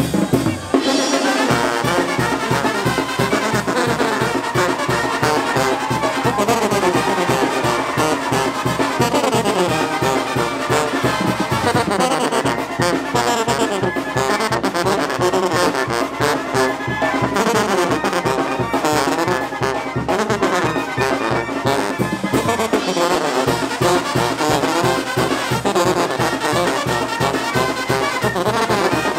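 Mexican banda (brass band) playing: sousaphones carrying a steady, even beat under trumpets and clarinets.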